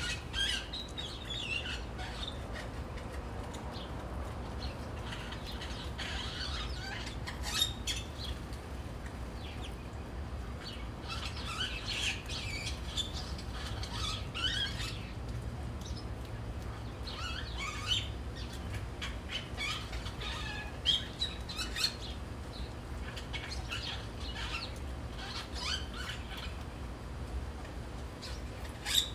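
Many small birds chirping, with short high calls all through and a few sharp flutters of wings, as a flock bathes and flits around a bird bath.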